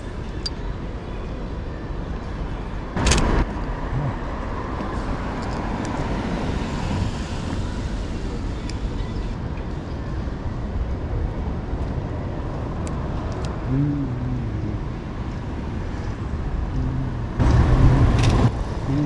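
City street ambience: a steady hum of road traffic, with two short, louder rushes of noise, one about three seconds in and one near the end.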